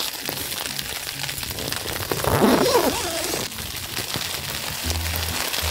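Hail and rain falling on a tent, a steady dense run of small hits, with a short vocal sound a little over two seconds in.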